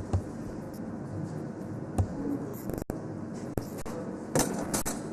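Kitchen work sounds: scattered light knocks and clicks of utensils and dishes being handled, with a few short scraping noises about four and a half seconds in.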